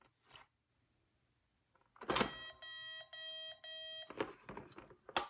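Toy electronic cash register giving a quick run of electronic beeps as the toy credit card is used, about two seconds in and lasting over a second. Plastic clicks come just before and after the beeps.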